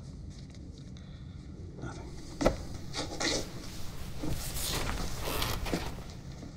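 A single knock about two and a half seconds in, then paper rustling and rubbing as the pages of a book are handled, over a steady low room hum.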